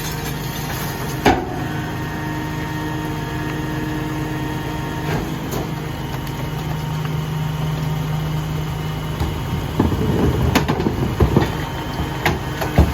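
Dennis Eagle rear-loader garbage truck idling steadily, with a single sharp click about a second in. Irregular clattering knocks start near the end.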